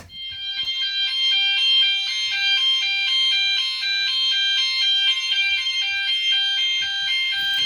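Gent fire alarm sounder on its standard alternating tone, switching between two pitches about twice a second. It is really loud, even though it is set to its lowest volume (50% reduction, not turbo).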